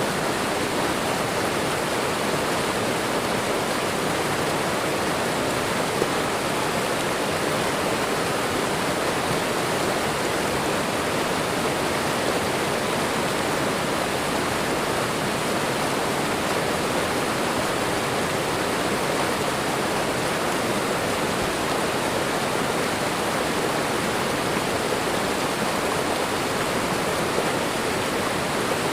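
Waterfall and running water: a steady, even rush of falling water with no changes.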